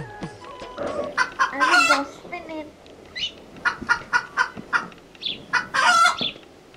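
Chickens clucking in short repeated calls, with two louder, longer rooster-like calls, one about two seconds in and one about six seconds in.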